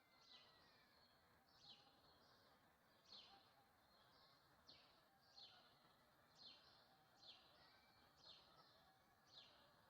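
Quiet morning birdsong: a bird repeats a short, high, downward-sweeping call about once a second, with fainter chirps of other birds behind it.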